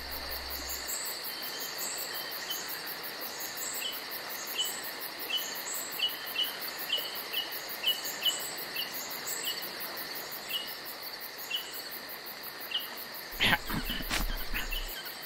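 Crickets chirping steadily in a night ambience, with short high chirps scattered over it. A few brief louder sounds come near the end.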